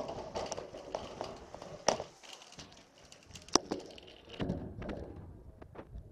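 Metal shopping trolley rattling and clacking as it is pushed, with two sharp clacks about two and three and a half seconds in. From about four and a half seconds a low rumble joins.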